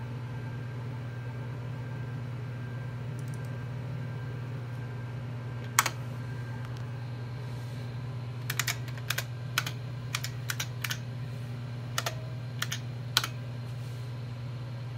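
Key presses on the IBM PC XT's keyboard: a single keystroke about six seconds in, then a quick run of about a dozen keystrokes from about eight and a half seconds in as DOS commands are typed. Under it runs the steady low hum of the running computer.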